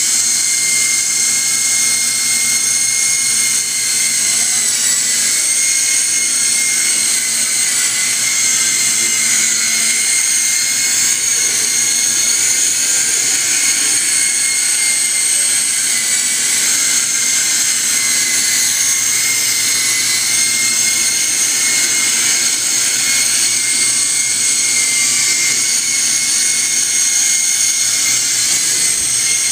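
S032G mini indoor RC helicopter in flight: its small electric motors and rotors give a steady high-pitched whine that wavers slightly in pitch.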